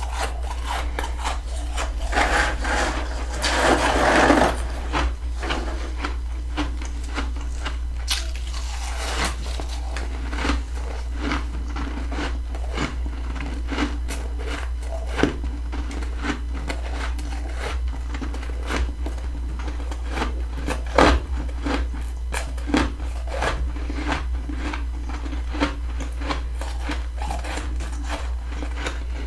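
Humidifier-grown freezer frost being bitten and chewed: a dense crunching stretch about two to four seconds in, then many crisp crackles and crunches, over a steady low hum.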